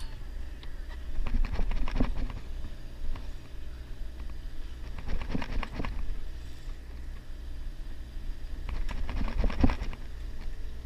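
Fly reel ratcheting as line is reeled in against a hooked bonito, in three short bursts of rapid clicks about four seconds apart, over a steady low hum.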